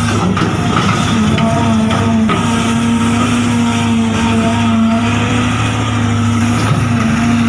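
Remote-control model truck or excavator motor running steadily: a continuous hum made of several held tones.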